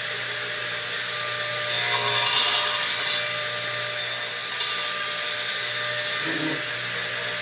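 Craftsman 10-inch radial arm saw running with a steady motor hum while its blade is pulled across a pine rail to cut a tenon. The blade bites into the wood for about a second and a half starting about two seconds in, then briefly again about four seconds in.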